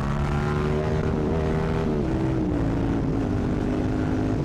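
Yamaha MT-07 parallel-twin engine running through an exhaust with its baffle removed, the engine note steady and then falling about two seconds in as revs drop.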